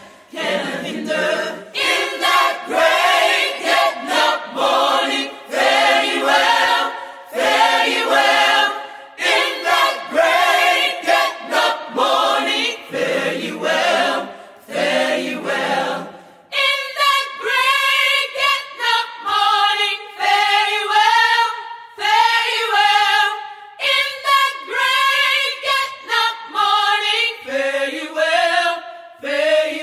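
Gospel choir singing unaccompanied, several voices in harmony. A little past halfway the low voices drop out and the higher voices carry on alone.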